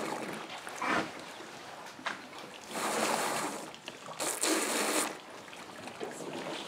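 African elephants drinking at a waterhole: water splashes and trickles in several bursts of about a second each as the elephants draw it up in their trunks and pour it into their mouths.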